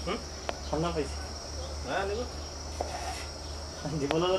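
Insects chirring steadily and high-pitched over a low steady hum, with several short voice-like calls on top; the longest begins near the end.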